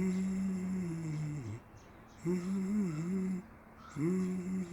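Repeated low, drawn-out moaning calls, each lasting over a second and coming about every two seconds, with a wavering pitch.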